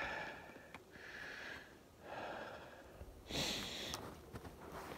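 A man breathing hard in a steady run of noisy breaths, about one a second, with a few faint clicks between them.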